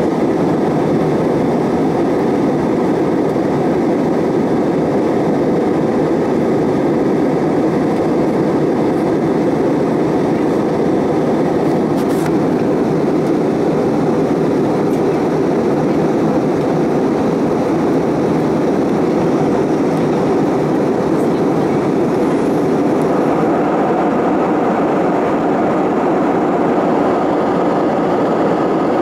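Steady rushing cabin noise of an Airbus A321 in flight, heard from inside the cabin: the engines and the airflow over the fuselage at an even level.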